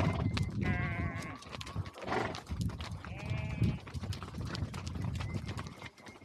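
Horses walking, their hooves and tack giving a run of short clicks, with two wavering bleats from a flock of sheep and goats, the first about a second in and the second around three seconds in.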